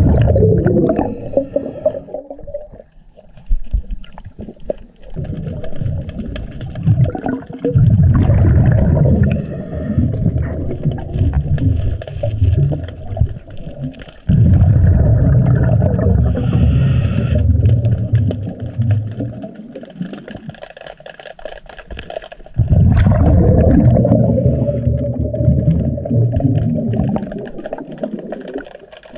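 Scuba diver breathing through a regulator underwater: long, loud bubbling rumbles of exhaled air recurring every several seconds, with quieter gurgling and scraping between breaths.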